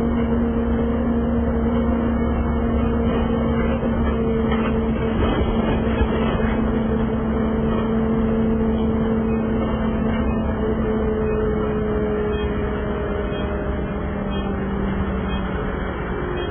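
City transit bus heard from inside near the front, its engine and drivetrain running steadily while cruising, with a steady hum under the road rumble. The hum sinks slightly in pitch near the end as the bus eases off.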